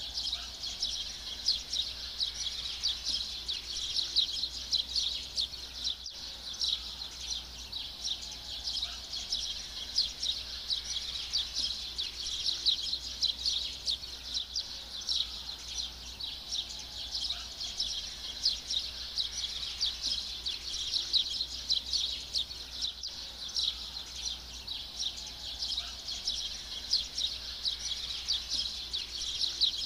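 Outdoor ambience: a dense, continuous chorus of rapid high-pitched chirping, with a faint low hum beneath.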